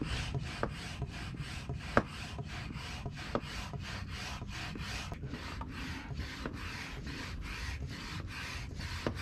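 Hand pump inflating an inflatable stand-up paddle board: a rhythmic rasping hiss of air with each stroke, about three a second, with a few sharp clicks along the way.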